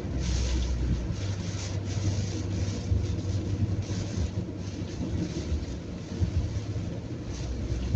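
Car driving on an expressway in heavy rain: a steady low road and engine rumble under the hiss of rain and tyre spray, which swells and fades every second or so.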